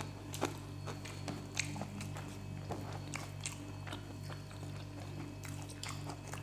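Two people eating rice and curry by hand: scattered, irregular chewing and mouth clicks over a steady low hum.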